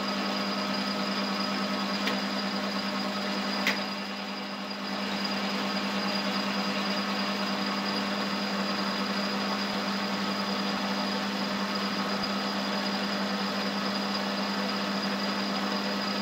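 Metal lathe running steadily while the cutting tool takes a turning pass along an aluminium bar: a constant machine hum with a faint high steady tone. A sharp click about three and a half seconds in, after which the sound briefly drops a little.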